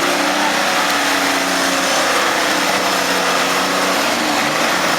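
Diesel engine running steadily, holding an even pitch.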